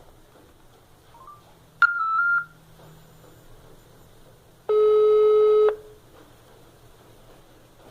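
Mobile phone on speaker placing a call: a short stepped electronic beep about two seconds in, then one steady ringback tone about a second long, the line ringing with no answer yet.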